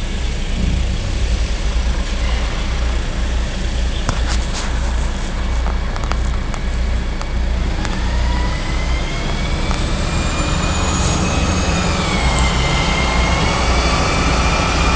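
Faun Variopress rear-loader garbage truck driving with its diesel engine running steadily, heard from a car following close behind. A few sharp clicks and knocks come about four to seven seconds in, and from about halfway a whine rises, dips and rises again as the vehicles pull away.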